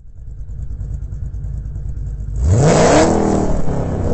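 Car engine running with a low rumble, then revved sharply about two and a half seconds in, its pitch rising and holding higher.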